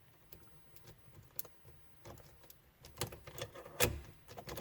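Keys jangling on a keyring with a few light clicks as the key is worked into a newly replaced ignition lock cylinder; the louder clicks come about three and four seconds in.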